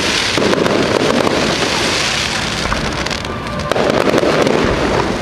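Aerial fireworks bursting overhead, with a dense, continuous crackling from the falling stars.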